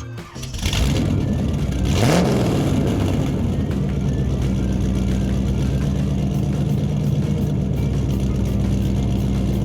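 Car engine sound: two loud whooshes about a second apart, the second with a rising rev, then the engine running steadily with a low hum.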